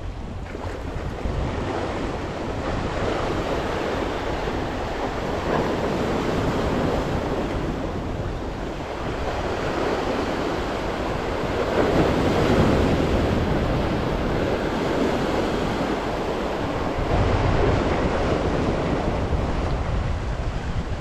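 Sea surf breaking and washing over jetty rocks, swelling louder with each set of waves, most strongly around the middle. Wind buffets the microphone with a low rumble underneath.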